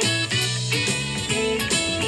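Rock band playing live, electric guitar to the fore over a steady beat.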